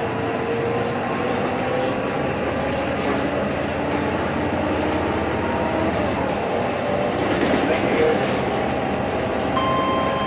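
A city bus running along a road, heard from inside near the front: a steady drone of engine and road noise with a drivetrain whine that slowly rises in pitch as the bus gathers speed. Near the end a steady high electronic tone starts.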